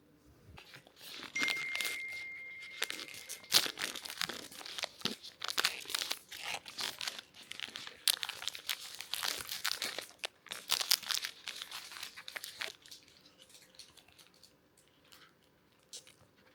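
Wrapping being crinkled, rustled and torn open by hand: a long run of crackling that stops a few seconds before the end. A thin steady tone sounds briefly near the start.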